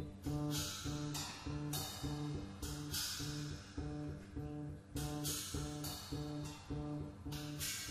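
Double bass plucking a repeated low riff, about two notes a second, with drum-set cymbal crashes cutting in about seven times.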